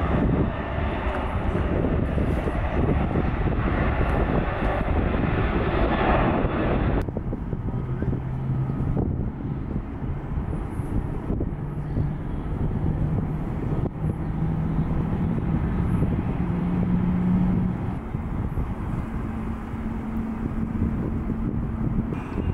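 Jet airliner engines: a loud roar for about the first seven seconds, then an abrupt change to a quieter rumble in which a low hum climbs slowly in pitch.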